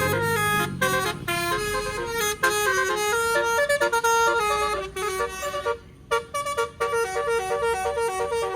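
Indonesian tour bus 'telolet' Basuri horn, a set of electrically switched air horns, playing a quick tune of short stepped notes, with a brief break about six seconds in.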